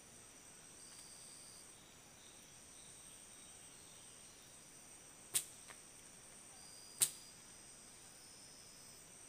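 Faint steady high-pitched insect chirring in the forest, with two sharp snaps about a second and a half apart past the middle; no chainsaw running.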